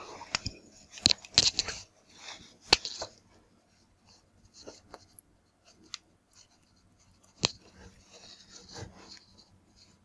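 Hands handling and working insulated wires at magnetic contactors: irregular rustling and crinkling with scattered sharp clicks, busiest in the first few seconds, with one sharp click past the middle.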